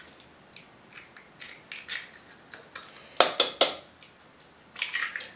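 Eggs being cracked over a mixing bowl: scattered shell clicks and scrapes, with a cluster of sharp taps about three seconds in and a short crackle of shell near the end.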